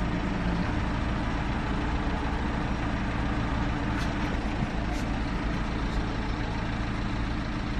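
Car engine idling steadily, heard from inside the cabin while the car stands still, with a couple of faint ticks about four and five seconds in.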